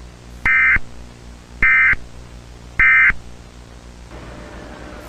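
Three short bursts of Emergency Alert System (SAME) digital data tones, about a second apart, over a faint hiss: the end-of-message code that closes an EAS broadcast.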